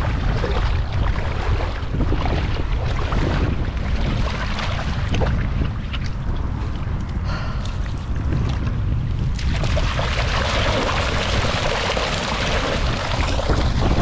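Wind buffeting the microphone over water sloshing around a cast net full of mullet as it is gathered up in shallow water. From about nine and a half seconds in, louder steady splashing as the heavy net is lifted and water streams out of it.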